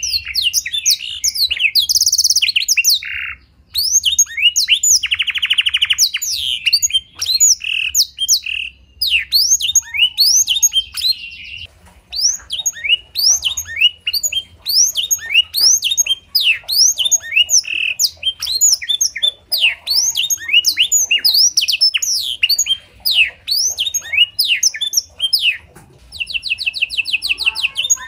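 A domestic canary singing a song filled in with black-throated canary phrases: fast strings of sliding whistled notes broken by buzzy trills, with a few short pauses.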